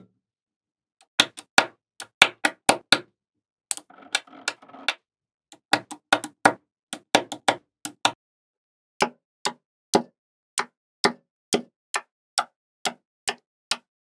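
Small neodymium magnet balls clicking sharply as pieces of a build are snapped together, about two clicks a second, with a brief rattle of balls around four seconds in.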